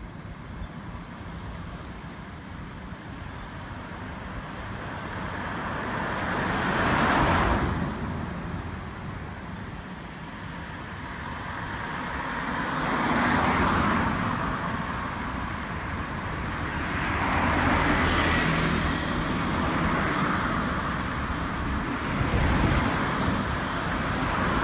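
Road traffic: several vehicles pass one after another, each swelling and fading away, the loudest about seven seconds in.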